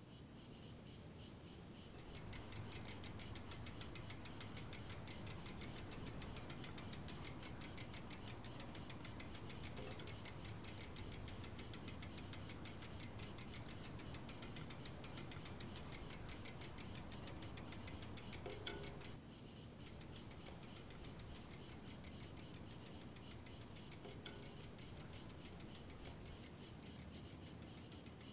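Insects chirping in a fast, even pulsing rhythm over a steady high hum. The chorus drops in level about two-thirds of the way through.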